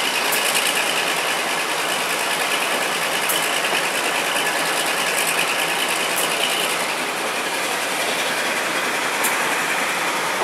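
Passenger train hauled by the Class 52 diesel-hydraulic locomotive D1010 running along the line, heard from an open carriage window: a steady rush of running noise, with a sharp click about every three seconds as wheels cross rail joints.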